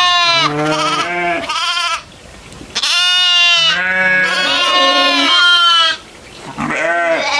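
Goats bleating in three long bouts, with two calls at different pitches overlapping.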